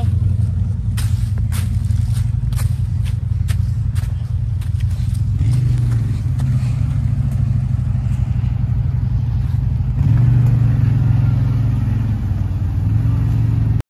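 CFMoto ZForce side-by-side's engine running at low revs as it crawls through a deep washout, with the throttle opened up briefly about five seconds in and again about ten seconds in. Dry leaves crackle under the feet of someone walking during the first few seconds.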